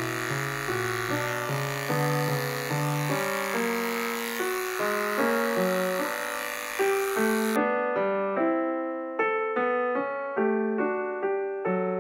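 Solo piano background music, a steady run of single notes. For the first seven or so seconds the steady buzz of electric dog clippers runs underneath, then cuts off suddenly, leaving the piano alone.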